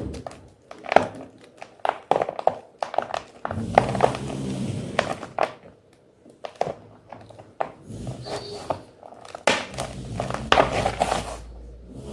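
Block of white gym chalk being crunched, giving a run of sharp, irregular crackling snaps and crumbles.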